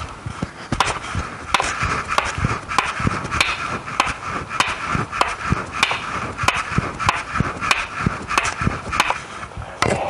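A steady run of sharp knocks, about three every two seconds, over a constant background hiss.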